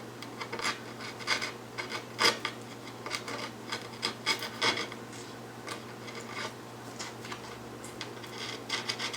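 Blade cutting through skateboard grip tape along the edge of the deck, in a series of short, uneven strokes, the loudest a little over two seconds in.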